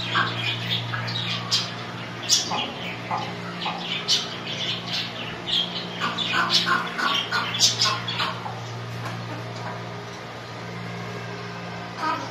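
Flock of Australorp chickens squawking and clucking, mixed with many short, sharp, high chirps from budgerigars, over a steady low hum.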